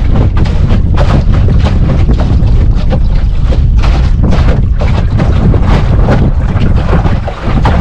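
Strong wind buffeting the microphone in loud, irregular gusts, over the wash of choppy water along a small sailboat's hull under way. There is a brief lull near the end.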